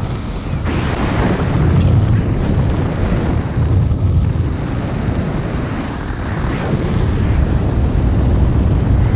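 Airflow rushing over the camera microphone of a paraglider in flight: a loud, steady, low buffeting rumble that rises and falls unevenly.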